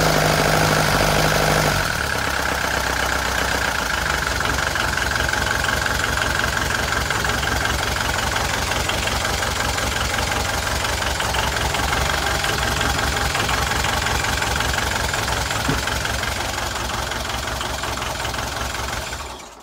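Sailboat's inboard marine diesel engine idling with a steady, even knocking clatter. It is louder for about the first two seconds, then holds steady until it fades out at the very end.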